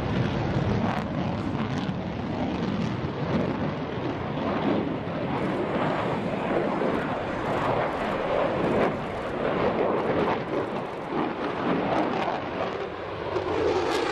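Lockheed Martin F-22 Raptor's twin Pratt & Whitney F119 turbofans heard from the ground as the jet manoeuvres overhead: a steady, rushing jet noise that rises and falls a little in loudness.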